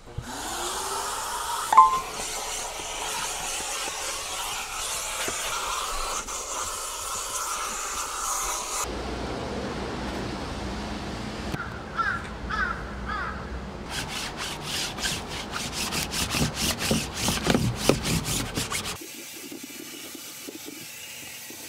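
Self car wash vacuum running with a steady hiss as its nozzle is worked over the car's carpet, with a sharp click about two seconds in. Later comes a quick rhythmic rubbing of several strokes a second, as grass is scrubbed out of the carpet.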